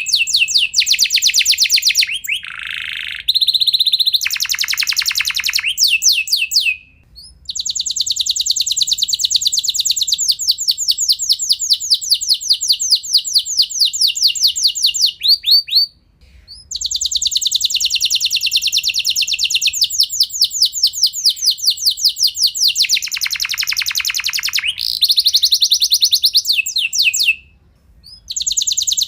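Domestic canary singing long rolls: rapid trills of evenly repeated high notes, each phrase held for several seconds, with a few brief pauses between phrases.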